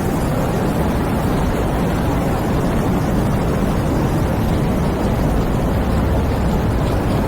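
Heavy rain driven by strong wind: a steady, loud rushing hiss with a deep rumble underneath.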